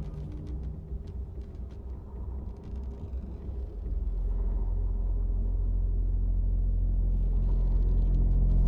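A low, steady rumbling drone from a film score. It swells about four seconds in and keeps building.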